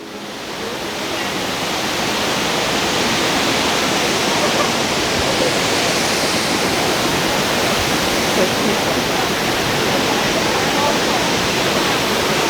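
Brandywine Falls, a 65-foot waterfall, rushing steadily; it fades up over the first couple of seconds.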